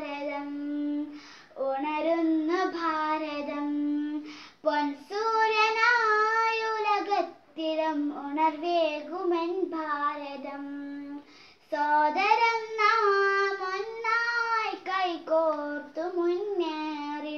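A young girl singing a Malayalam patriotic song solo and unaccompanied, in phrases of long held notes that waver in pitch, with short pauses for breath between lines.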